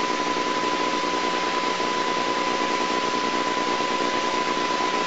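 Steady hiss with a thin, steady high-pitched tone running through it and no change: the background noise of a blank stretch of old analogue videotape.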